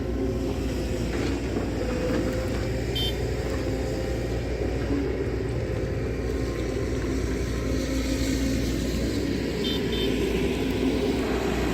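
An engine running steadily with a low hum, with two short high chirps about three seconds in and near the end.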